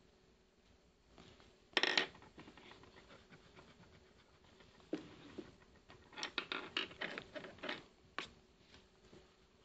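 Faint handling sounds of pencil and sketchpad: a brief rustle about two seconds in, then a run of light clicks and knocks, with a last click a little after eight seconds.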